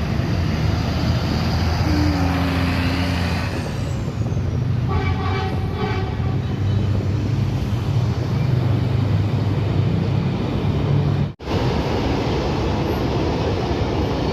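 Large bus engine running close by as a bus passes, with a horn sounding for about a second and a half about five seconds in.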